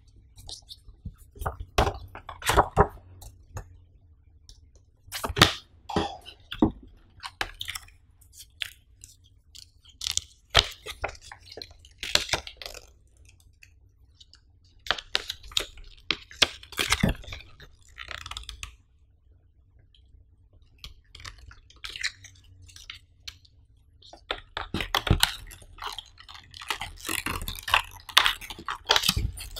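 Close-up rustling and crinkling of packaging being handled in scattered bursts: the paper user-manual leaflet being unfolded, then the clear plastic tray of a power-bank box, with dense plastic crackling near the end.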